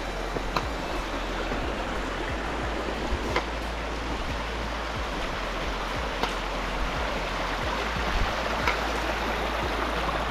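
A mountain brook rushing steadily, with a few faint clicks over it.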